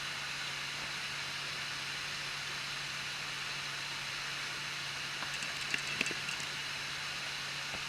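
Anycubic i3 Mega 3D printer running with a steady fan hiss and hum, its extruder giving a few sharp clicks about five to six seconds in. The clicking is the extruder skipping on the filament, which the uploader traces to slicer settings, an unlevelled bed or old PLA before suspecting the extruder itself.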